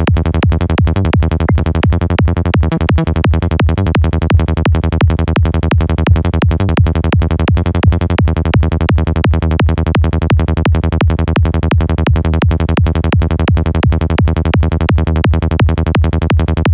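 Sylenth1 synth bass patch looping in a fast, evenly pulsing 170 BPM psytrance pattern, run through FabFilter Saturn saturation with an amp-type distortion on its high band.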